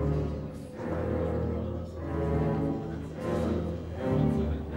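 Background music on low bowed strings, cello and double bass, in slow swelling phrases.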